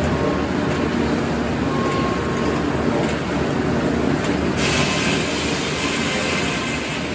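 Sawmill circular head saw running steadily with the log carriage moving. About four and a half seconds in, the blade enters a white oak cant and a higher-pitched cutting noise joins the steady run.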